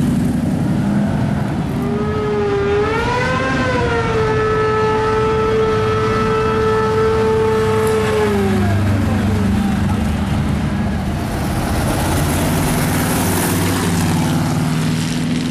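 Hot rods and classic cars driving past with their engines running. From about two seconds in, a loud pitched tone wavers, holds steady for several seconds, then slides down and fades near the middle.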